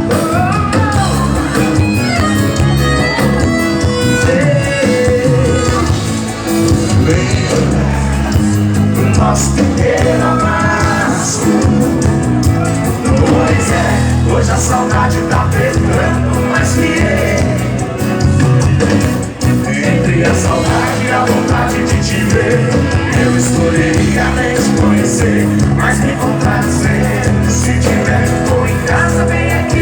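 Music: a song with a singing voice over a full band backing.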